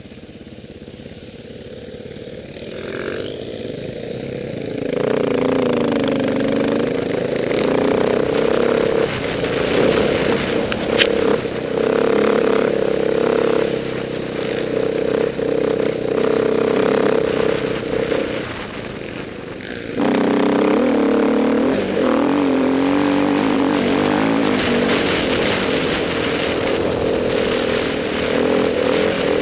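Enduro dirt bike engine close to the camera, running low for the first few seconds, then revving up about five seconds in and running loud with its pitch rising and falling as the rider accelerates and eases off along the trail. It drops off briefly a little before twenty seconds, then picks up again.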